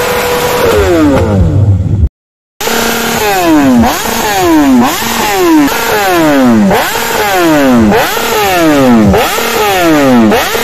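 Motorcycle engine held briefly at steady revs, then falling away. After a short break it is revved again and again about once a second, each throttle blip rising sharply and the revs falling back over most of a second.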